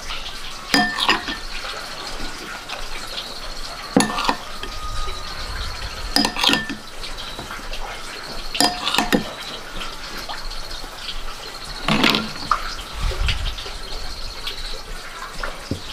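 A metal spoon clinks and scrapes against a ceramic bowl while packing moist minced-meat filling into a green bell pepper, with a sharp clink every few seconds. A cricket trills in short pulsed runs behind it.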